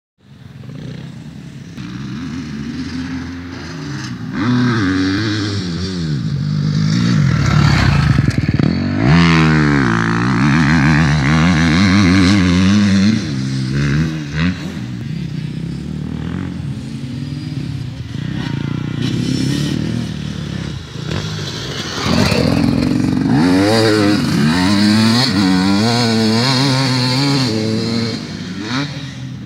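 Motocross dirt bike engines revving up and dropping back over and over as they ride the track, the pitch climbing and falling with each run through the gears. A hard rev rises and falls about nine seconds in, and another burst of revving comes in the last third.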